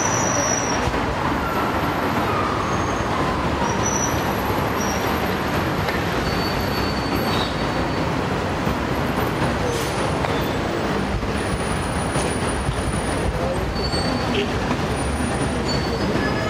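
Steady city traffic noise, an even rumble and hiss, with a few brief faint high-pitched squeals over it.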